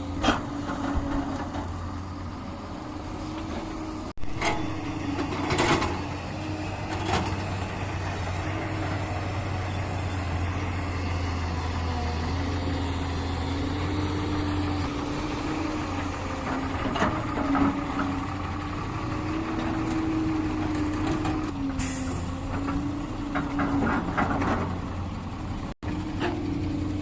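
Heavy diesel earth-moving machinery running steadily with a slightly wavering engine note, and occasional clanks and knocks scattered through.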